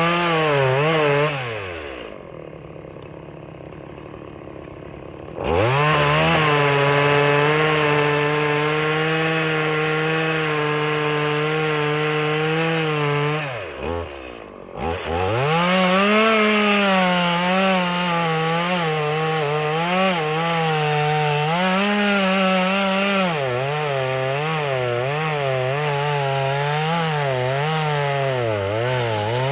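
Stihl MS180 two-stroke chainsaw cutting firewood. It drops to idle for a few seconds near the start, revs back to full throttle and holds steady, lets off briefly about halfway, then runs on with its pitch wavering up and down as the chain loads and unloads in the wood.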